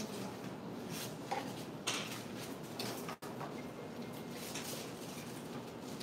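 Thin paper sheets rustling and crinkling as they are handled and laid on a glass-topped table. There are a few sharper rustles, about a second and two seconds in, then again near three and four and a half seconds.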